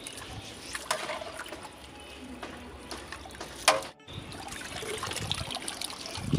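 A ladle stirring rice and moong dal through water in a large metal pot, with sloshing and trickling. There are a few knocks of the ladle against the pot, the loudest a little under four seconds in, followed by a brief dropout.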